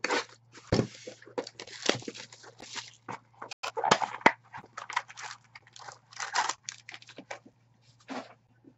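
A trading-card box being torn open and its foil-wrapped pack handled: irregular crinkling, rustling and tearing of cardboard and foil wrapper.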